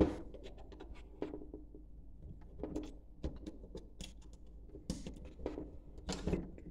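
Scattered light clicks and taps of small metal screws and fittings being handled as a DC-DC converter module is fastened by hand to a metal mounting plate.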